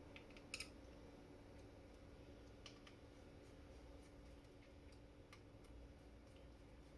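Near silence over a steady low hum, broken by a few faint, scattered light clicks, the clearest just over half a second in and others around three and five seconds: small screws and a screwdriver being handled as the screws are snugged into the plastic keyboard dock.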